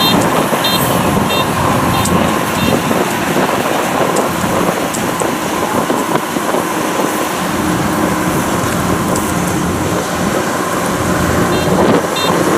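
Kubota DC-105X combine harvester running steadily under load while harvesting rice, with a constant whine over the diesel engine and threshing noise.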